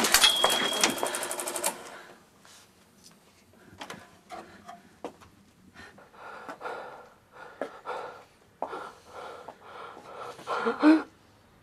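A scuffle. A fast, loud clattering rattle fills the first couple of seconds, then come scattered knocks, shuffles and rustles, with a louder clatter near the end.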